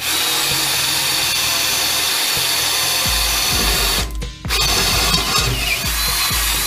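Ryobi 18V cordless drill running at full speed, boring a hole through the car's underbody sheet metal. It stops briefly about four seconds in, then drills again. These are holes for rivet nuts.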